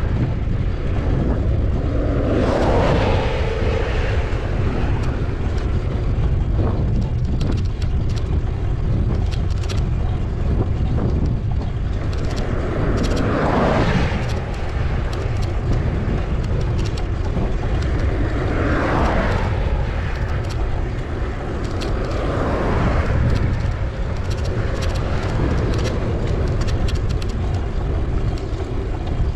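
Steady wind rumble on the microphone while riding a bicycle along a busy highway, with about four vehicles swelling past one after another.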